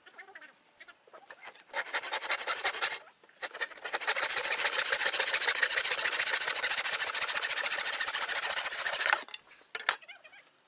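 Hand saw cutting through a wooden bar: a few short starting strokes about two seconds in, then steady sawing for about five seconds that stops abruptly. A single knock follows just after.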